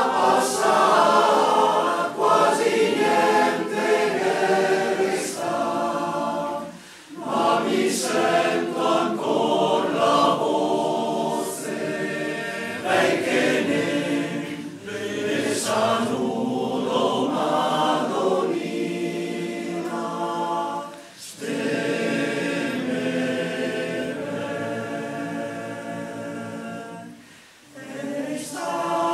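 Male voice choir singing a cappella in close harmony, long held phrases with brief breaks between them about seven, twenty-one and twenty-seven seconds in.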